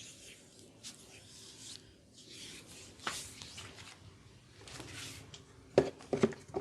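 Hands rubbing over skin and hair in soft swishing strokes. Near the end comes a quick run of sharp cracks, the loudest sound here: joints cracking in a chiropractic adjustment.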